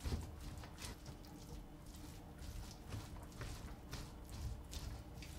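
Spatula stirring and folding ketchup-coated cooked rice in a stainless steel pot: soft, irregular scrapes and squishes of the blade through the sticky rice and against the metal.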